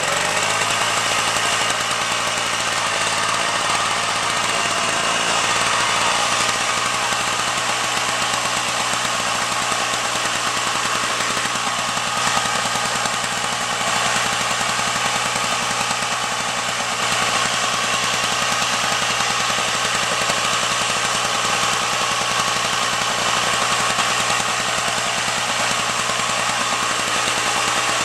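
Small two-stroke engine, just cold-started, running steadily at a fast, even speed.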